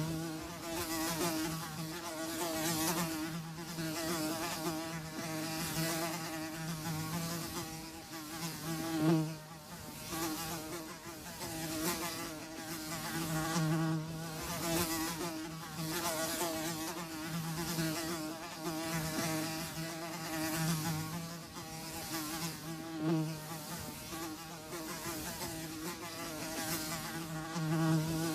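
Flies buzzing in flight, a steady low droning hum that waxes and wanes as they come close and pass away again, with several louder close passes.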